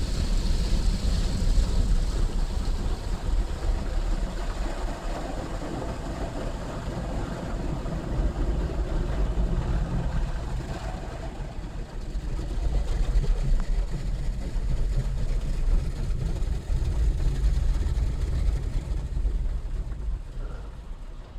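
Automatic car wash heard from inside the car's cabin: water jets spraying and drumming on the windscreen and body over a steady low rumble, easing off near the end.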